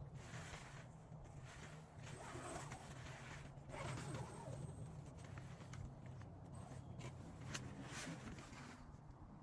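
Irregular short rasping strokes and rustling, as of gear being handled, over a low steady hum.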